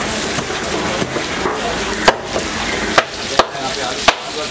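Heavy machete-style knife chopping a slender car fish into chunks on a wooden cutting board: a run of sharp chops, the loudest four in the second half.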